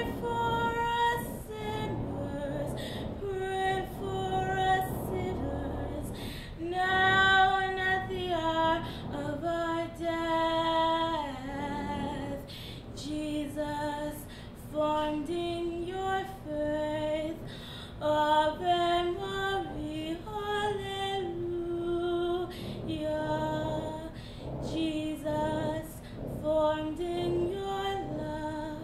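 A young woman's voice singing solo, with long held notes stepping up and down in pitch and short pauses for breath between phrases.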